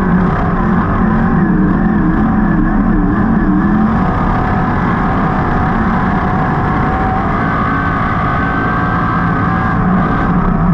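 A 305 sprint car's V8 engine at racing speed, heard from inside the cockpit. Over the first few seconds the pitch rises and falls as the throttle is worked, then it holds steadier.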